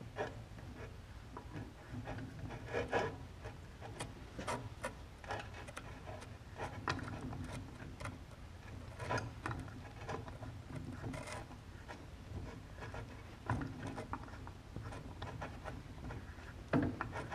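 A hand tap cutting threads into a steel latch part, turned in short strokes with a tap wrench: irregular metallic clicks and scrapes as the tap bites and backs off.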